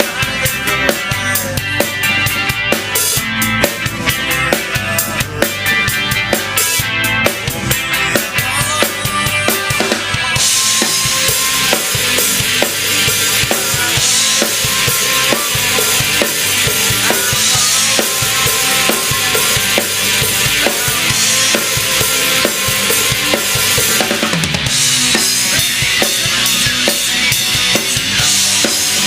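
Rock band music led by a DW Collector's Series drum kit with bubinga waterfall shells: bass drum and snare driving the beat, with a cymbal wash from about a third of the way in that eases briefly near the end and comes back.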